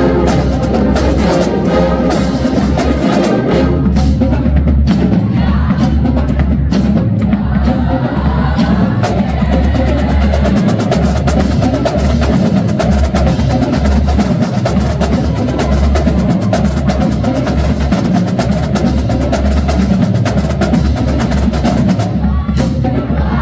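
Marching band drumline playing a fast, busy drum break: rapid snare drum strokes over heavy bass drum hits, with the band sounding underneath.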